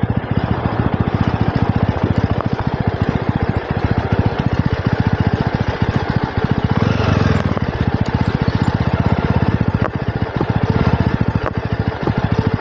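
Jawa 42 motorcycle's single-cylinder engine running steadily with an even chug of exhaust pulses, over a steady rushing of wind and tyre noise.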